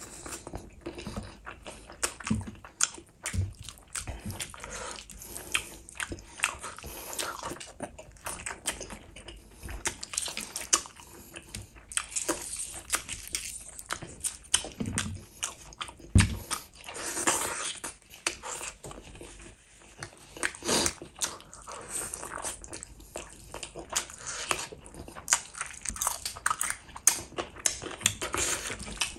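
A person eating spicy chicken lollipops with gravy and rice by hand: wet chewing and biting, with a dense run of irregular smacks and clicks.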